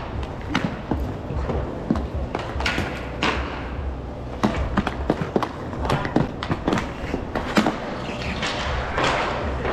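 Roller hockey play: a steady low rumble of inline skate wheels rolling, broken by many irregular sharp clacks and knocks of sticks and puck.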